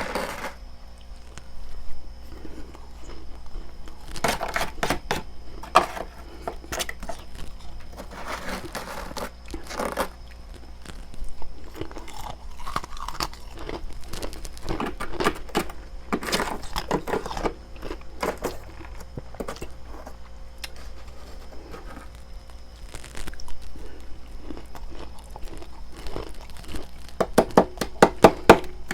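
Close-up crunching and chewing of freezer frost, in irregular clusters of sharp crunches, with a quick run of crunches near the end.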